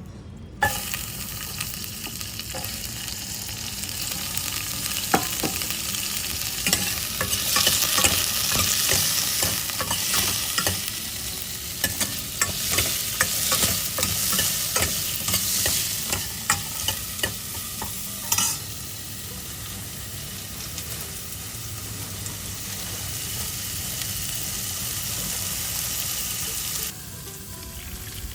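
Food sizzling in a hot pan while it is stirred, with a steady frying hiss and the utensil knocking and scraping against the pan many times in the middle stretch. The sizzle starts suddenly just after the beginning and stops abruptly near the end.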